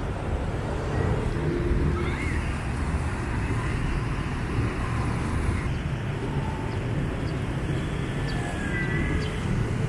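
Steady street traffic noise from motorbikes and cars passing on a city road.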